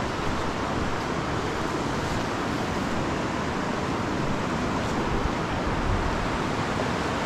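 Steady rush of the fast mountain Shumak river flowing past, an even, unbroken roar of water.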